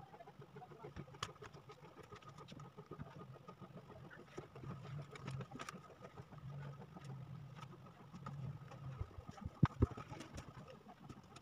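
Wood-grain adhesive wallpaper being handled and pressed onto a wooden cabinet door: scattered light rustles and clicks, with two sharp knocks in quick succession near the end, over a steady low hum.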